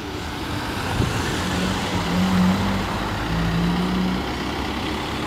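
A motor vehicle's engine running, its rumble growing louder about a second in, with a steady low hum through the middle.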